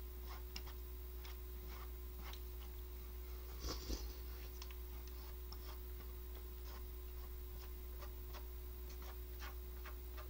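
Quiet eating of rice noodles with chopsticks: faint, irregular small clicks of chewing and of chopsticks on the container, with one brief louder noise about four seconds in, over a steady low electrical hum.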